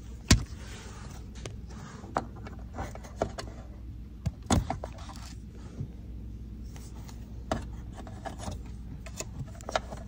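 Hands handling dishwasher wiring and a plastic wire-harness connector: scattered small clicks, rubs and scrapes, with a sharp knock just after the start and another about halfway.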